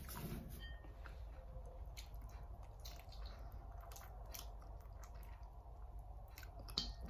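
Close mouth sounds of eating chicken feet cooked in coconut milk by hand: faint wet sucking and smacking with small clicks of chewing around the bones, and one sharper click near the end.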